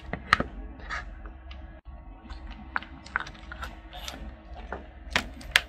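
Multimeter test leads being handled: irregular light clicks and taps of the plastic probe handles and connectors knocking together, with a couple of sharper clicks near the end.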